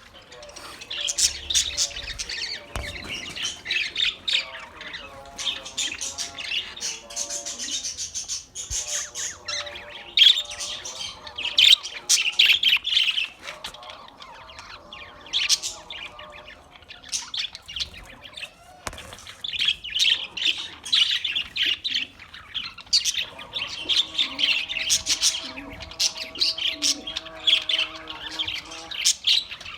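Australian parrots chirping and squawking, a near-continuous run of quick, high calls.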